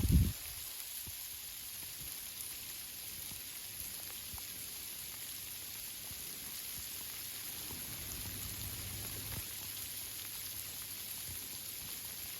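Steady rain falling on tree leaves: an even hiss with scattered small drip ticks. A brief low thump comes right at the start.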